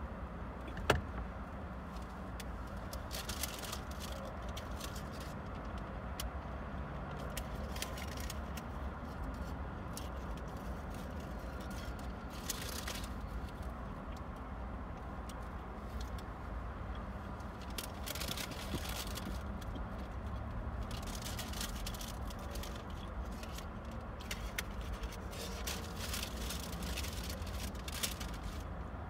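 Road traffic heard from inside a parked car: a steady low rumble, with cars swishing past every few seconds. A single sharp click about a second in.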